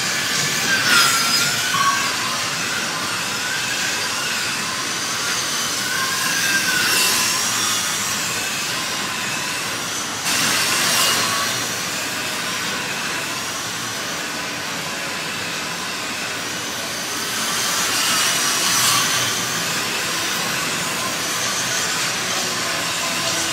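Slot cars racing: their small electric motors whine, the pitch rising and falling as the cars speed up and slow for the turns, with several louder sweeps as cars pass close.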